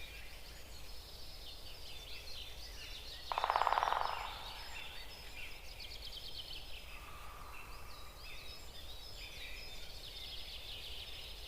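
Many small birds chirping and singing together, with one loud, rapid rattling call about a second long a little over three seconds in.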